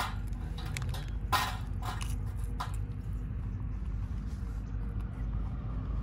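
A few short rustles and scrapes from food being handled, the loudest about a second and a half in, over a steady low hum.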